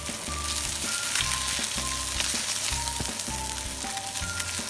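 Raw chicken sizzling in hot oil in a non-stick frying pan, with a steady crackling hiss, over background music with a bass line and a simple melody.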